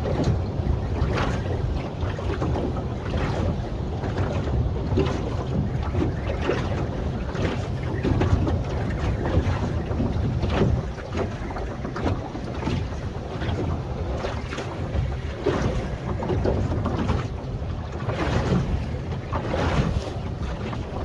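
Wind buffeting the microphone over water slapping and splashing against a small boat's hull in a light swell.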